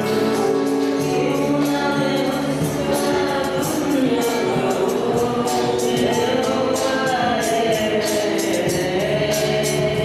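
A group of voices singing a Christian worship song, accompanied by an electronic keyboard and a tambourine jingling on a steady beat.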